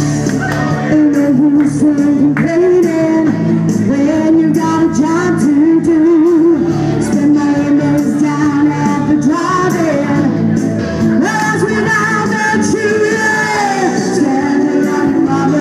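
A woman singing a song into a handheld microphone over backing music, her held notes wavering with vibrato.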